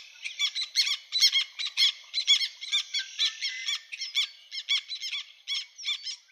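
Black tern calling: a quick series of sharp, high, squeaky notes, about three a second, getting fainter near the end.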